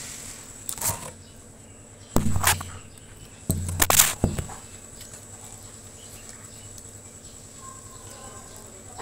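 Crunchy fried snack stick being bitten and chewed close to the microphone: three loud crunching bursts in the first half, then only faint chewing.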